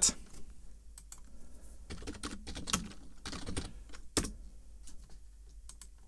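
Typing on a computer keyboard: a scattering of irregular key clicks.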